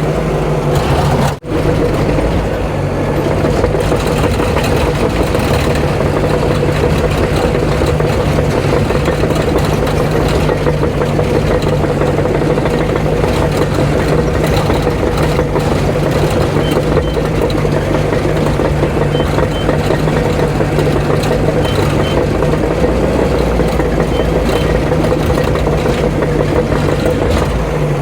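Heavy earthmoving machine's diesel engine running steadily under work, with a brief cut-out about a second and a half in.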